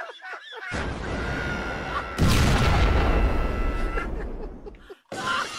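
Explosion sound effect: a low rumble builds, then a loud boom about two seconds in rolls on and fades out near the end, with a steady high tone ringing through it.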